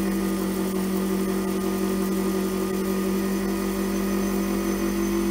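Lathe running with a steady hum as a hand-held turning tool cuts down a spinning Delrin (acetal plastic) blank, peeling off plastic shavings.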